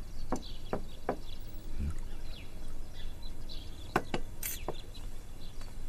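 A porcelain teapot lid clinks a few times in the first second, then two quick knocks on a wooden door sound about four seconds in. Faint bird chirps run underneath.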